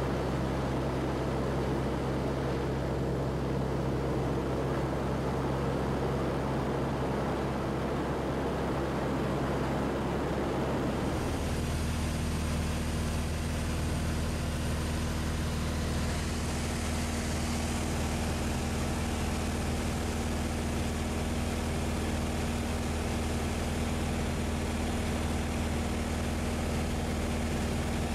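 Grob G-109B motor glider's piston engine and propeller droning steadily in cruise, heard from inside the cockpit; the engine note shifts abruptly about a third of the way through, then holds steady again.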